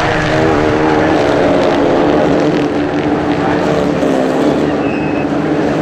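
Several Renault Clio Cup race cars' engines running together in a steady drone as the field passes the track.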